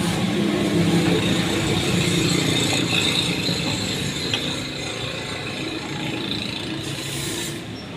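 A machine running steadily with a fine rapid rattle and a low hum, slowly getting quieter over the last few seconds.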